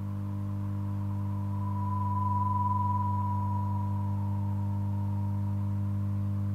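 Electronic drone of steady low sine tones, with a thin higher tone that swells up about two seconds in and slowly fades again.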